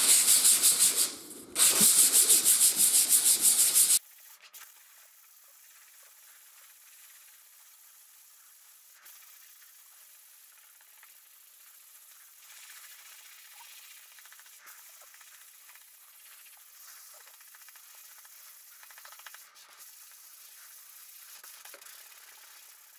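150-grit sandpaper wrapped around a sanding block rubbed in quick back-and-forth strokes over the face of a laser-cut wooden kit sheet. There is a brief pause about a second in. About four seconds in the sound cuts off suddenly, leaving only a faint hiss.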